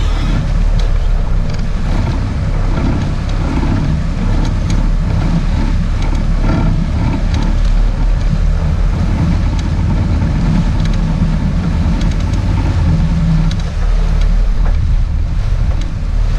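Sport-fishing boat's engine running steadily with a low rumble, mixed with wind buffeting the microphone and water washing at the stern.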